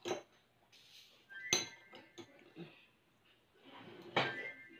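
Spoons and forks clinking against plates and bowls while eating: three sharp clinks, about a second and a half in and again near the end, the later two ringing briefly.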